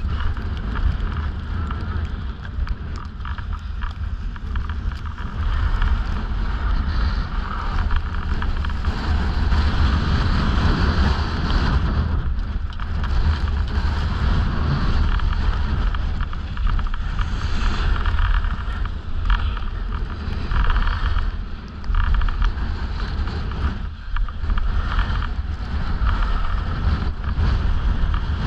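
Wind buffeting the microphone as a skier glides downhill, over the steady hiss and scrape of skis sliding on packed snow that swells and eases with the turns.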